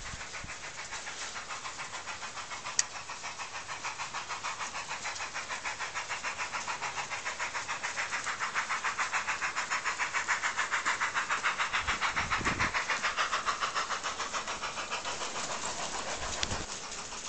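Garden-railway model locomotive hauling a goods train past, with a quick, even beat of about five a second that grows louder as the train nears and then fades. A single sharp click comes about three seconds in.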